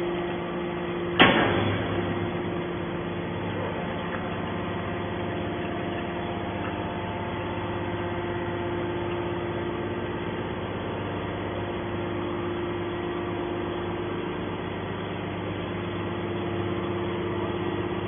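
Hydraulic scrap metal baler ejecting a compressed bale of steel rebar: one sharp bang about a second in, then the steady hum of the hydraulic power unit as the ram pushes the bale out.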